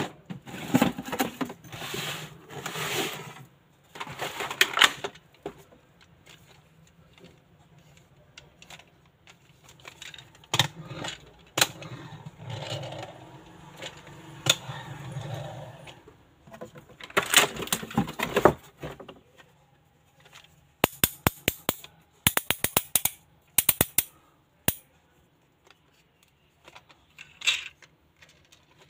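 Cardboard box and plastic packaging being handled, with rustling and scraping. About two-thirds of the way through come quick runs of sharp clicks from the ratchet of a press-and-go toy car as it is pushed down and wound.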